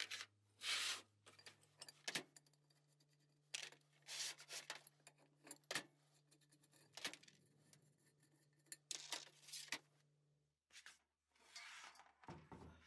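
Quiet handling noise from a rusty cast iron Christmas tree stand being gripped, tilted and turned over on a workbench: a string of short rubs and scrapes with a few sharp clicks.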